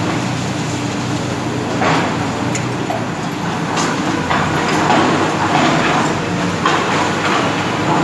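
Diesel engines of hydraulic excavators running steadily. Over them, concrete rubble crunches and clatters several times at irregular moments as the machines work the debris.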